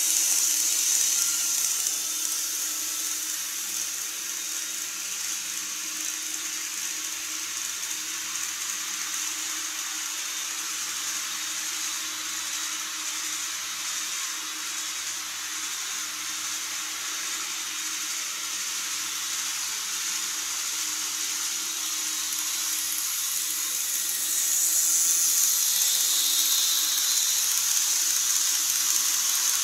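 KATO N-gauge model trains running on track: a steady high-pitched whirring hiss of the motors and wheels, easing about two seconds in as one train runs off, then growing louder near the end as a train rolls across the truss bridge. A faint steady low hum sits underneath.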